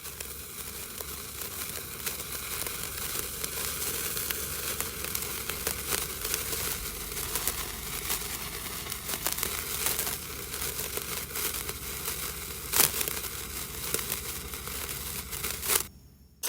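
Japanese handheld sparkler burning: a steady fizzing crackle of sparks peppered with sharp pops, one especially loud crack near the end. The crackle cuts off abruptly shortly before the end, followed by a brief burst.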